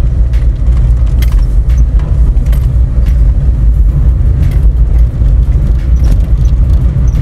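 Car driving on an unpaved dirt road: a steady low rumble of tyres and engine, with scattered light clicks and rattles.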